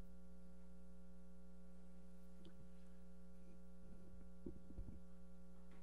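Steady low electrical hum from the room's microphone and sound system, with a few faint small knocks.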